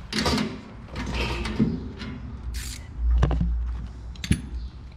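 Workshop handling sounds: a ratchet and socket picked up and fitted together, with a few sharp metal clicks and a low rumble about three seconds in.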